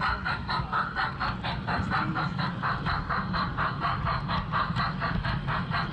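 LGB garden-scale model train running along its track: a steady, rapid chuffing of about five even beats a second over a low rumble of wheels and motor.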